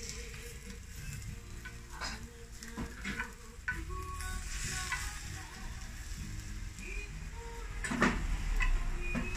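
Rolled Japanese omelette (tamagoyaki) sizzling in a rectangular tamagoyaki pan on a gas burner, with chopsticks and the pan knocking and clacking against metal several times; the loudest clatter comes about eight seconds in.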